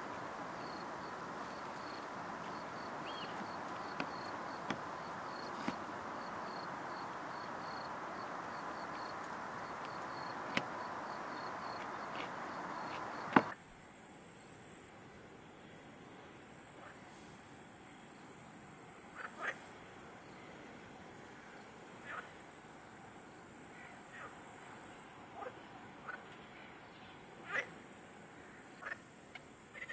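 Outdoor evening insect chorus: a cricket chirps about twice a second over a soft hiss. About halfway through a single sharp click marks a change to a steady high-pitched insect trill, with scattered short falling calls, likely frogs.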